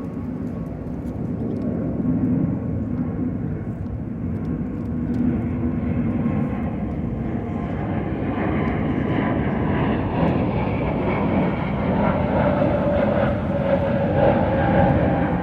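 A steady engine drone with a low rumble that slowly grows louder, a few steady tones coming in over its second half.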